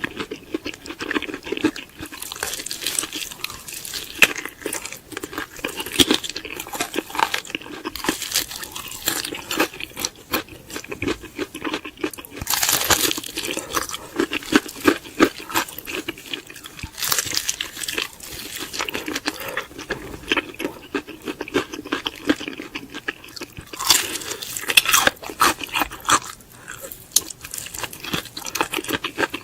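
Close-miked eating of crispy fried chicken: a continuous run of irregular crunching bites and chewing, with louder clusters of crunches now and then.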